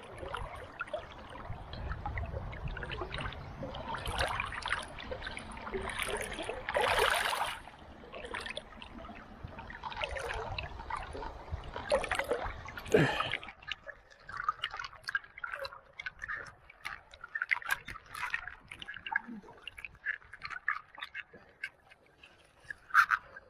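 River water splashing and sloshing close to the microphone, with a low rumble. About thirteen seconds in it settles to quieter, scattered drips and trickles.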